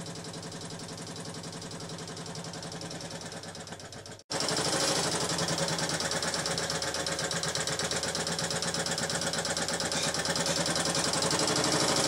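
Late-1940s Montgomery Ward Supreme Reversible Rotary (National RBR-2W) sewing machine running and stitching through cloth with a fast, even rhythm of needle strokes. The sound cuts out briefly about four seconds in and comes back louder.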